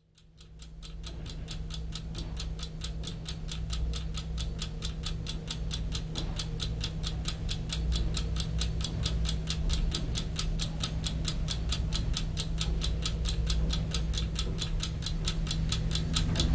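Clock ticking fast and evenly, several ticks a second, over a low steady hum, growing gradually louder.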